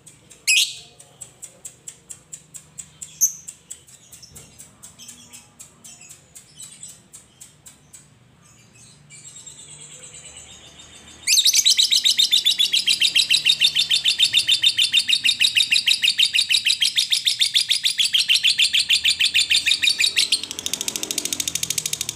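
Fischer's lovebird calling: first a run of short high ticks, about three a second, with a couple of louder single calls. About eleven seconds in it breaks into a long, loud, very fast chattering trill, the 'ngekek', which goes on for about nine seconds and then carries on a little softer.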